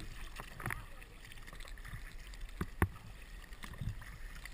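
Kayak paddle strokes: blades dipping and splashing in the water, with a sharp knock a little past halfway, over a low steady rumble of wind on the microphone.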